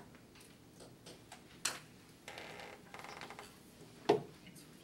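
Quiet meeting room with scattered small clicks and knocks, and a louder short knock about four seconds in.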